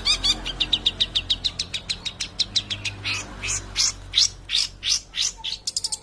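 Long-tailed shrike (cendet) singing energetically. It opens with a rapid run of short repeated chirps, about nine a second, then gives a few louder, harsher notes spaced further apart, and ends with another quick run.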